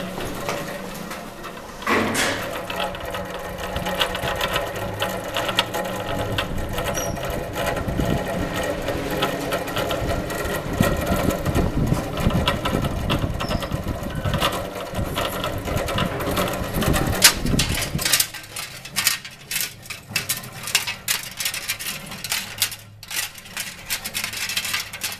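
A small machine running with a busy mechanical rattle; about eighteen seconds in it gives way to rapid, irregular clicking.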